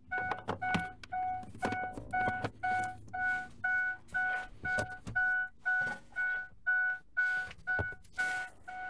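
A Ford truck's dashboard warning chime repeating steadily, about two and a half beeps a second, as a vehicle chimes with its door open, along with a few light knocks and rustles of handling.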